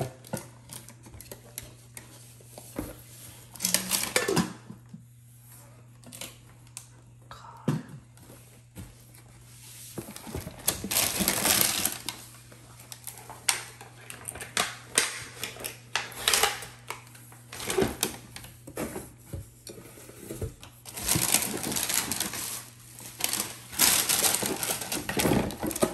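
Hands unpacking a nonstick cookware set: plastic wrapping crinkling and rustling, with scattered clicks and knocks as pots and glass lids are handled and set down in a cardboard box. The crinkling runs longest about ten seconds in and again near the end, over a steady low hum.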